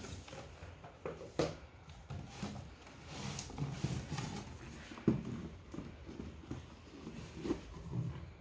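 Cardboard box being slid off a shelf, handled and its lid lifted off: rustling and scraping with several knocks, the loudest a sharp thump about five seconds in.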